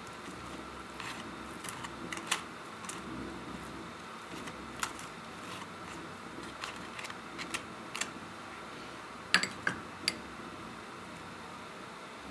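Light scattered clicks and taps of a table knife working on dry lavash flatbread and a small dish while food is spread on the bread, over a faint steady room hum. A few sharper clicks come close together about nine to ten seconds in.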